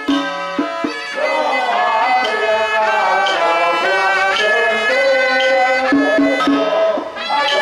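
Traditional Chinese folk music: a wavering, sliding melody line over sharp percussion strokes, which sound during the first second and return near the end.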